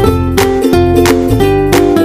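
Background music: plucked string notes over a steady beat.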